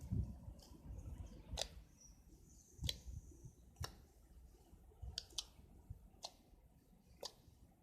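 Slime being poked and pressed, making small sharp pops and clicks at irregular intervals, about seven in all.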